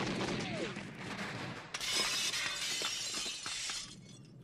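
A sudden shattering crash a little under two seconds in, bright and hissy, lasting about two seconds before it dies away.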